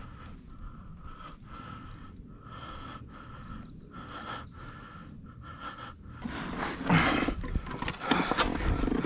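Handling noise as a large largemouth bass is moved about and laid onto a plastic measuring board: soft, regular rustling for about six seconds, then louder knocks and rustles near the end as the fish goes onto the board.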